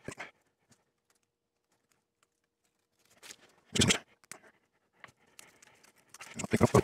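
Brown paper protective film being peeled and torn off a laser-cut black acrylic panel: scratchy crinkling and crackling in short bursts, one loud crackle about four seconds in and a longer run of crackling near the end.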